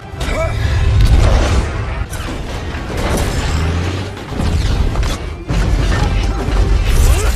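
Action-film battle soundtrack: music under repeated deep booms and crashing impacts.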